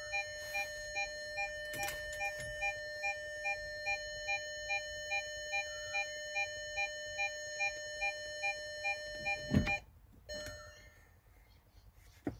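Steady high-pitched whine of noise through a car's speakers from the aftermarket head unit, a fault that a ground loop isolator has not cured, with an electronic warning beep repeating about twice a second over it. Both stop abruptly with a thump about ten seconds in.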